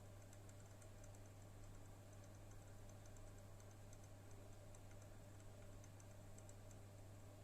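Faint, irregular high-pitched ticking from a graphics-card fan on an HP OEM RTX 3060 Ti, spinning at idle speed over its steady low hum. The owner traces the ticking to the right-hand fan, which feels stiff when pushed in, pointing to a fault in that fan.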